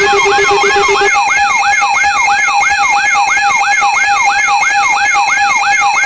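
Electronic alert siren yelping, about three rising-and-falling sweeps a second, layered over a steady pulsing alarm tone. A lower pulsing tone drops out about a second in.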